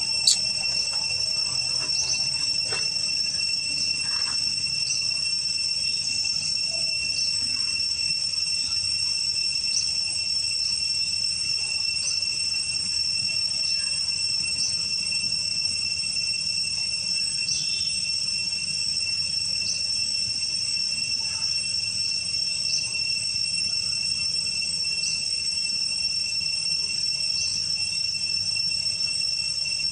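A chorus of insects shrilling steadily, a high-pitched drone at several fixed pitches that never lets up, with faint short ticks every second or two.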